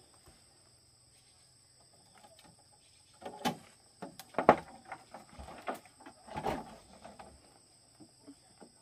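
A quiet stretch, then a run of short knocks and rustles from about three seconds in, the loudest about four and a half seconds in, over a faint steady high whine.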